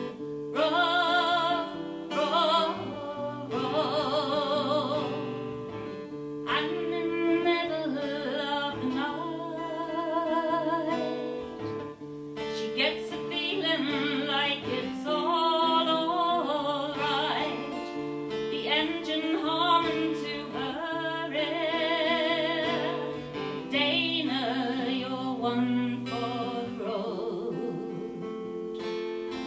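A woman singing a song with vibrato, accompanying herself on an acoustic guitar, heard live through a small venue's sound system.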